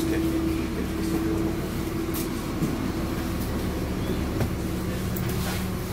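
Volvo B7LA bus running, heard from inside the cabin: a steady low rumble with a held droning tone that shifts lower about two seconds in, and a few light knocks.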